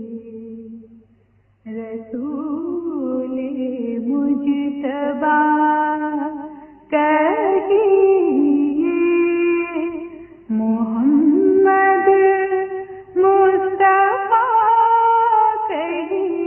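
A woman singing a naat, an Urdu devotional song in praise of the Prophet, with one voice in long, winding held notes. She breaks between phrases about a second in and again near 7, 10 and 13 seconds. A faint steady low hum lies underneath.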